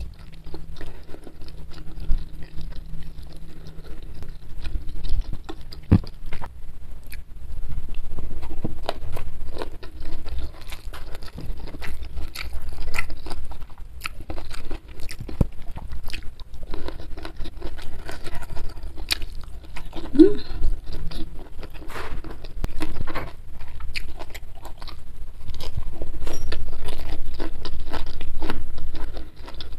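Close-miked eating by hand: chewing, with an irregular run of soft clicks and crackles from fingers working rice and side dishes.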